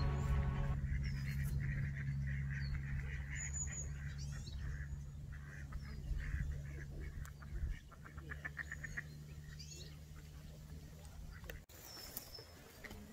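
Waterfowl calling on a lake: one call right at the start and a quick run of short calls about eight seconds in, over a low steady hum that stops abruptly near the end.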